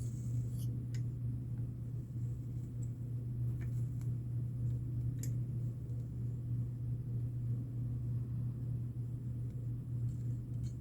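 A steady low hum with a few faint, light clicks scattered through it.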